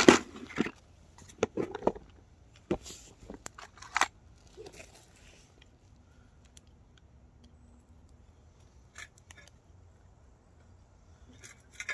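A plastic parts organizer clatters down onto the rails, followed by a few sharp clicks and knocks. Then come occasional faint metallic clicks and scrapes of hand tools and small hardware at a rail joint of 7¼-inch gauge track as the worn joint bars are taken apart.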